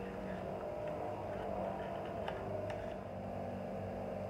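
Steady motor hum running throughout, with a few light clicks about two seconds in.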